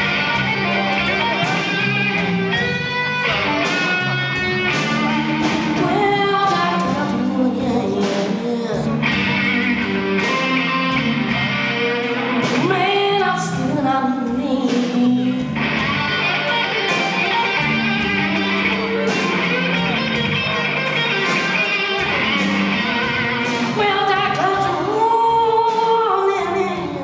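Live blues song: a young man sings while playing electric guitar through an amplifier, with a repeating low guitar line under the voice.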